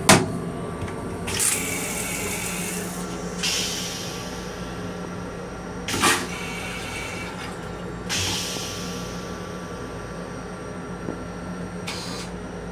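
Toilet seat in an M7 railcar restroom lifted and knocking once against the back, over the car's steady hum. Several short hisses follow, and a second knock comes about six seconds in.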